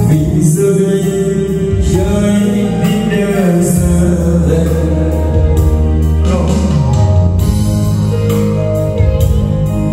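Karaoke through loudspeakers: a backing track with deep bass, and a man singing into a handheld microphone.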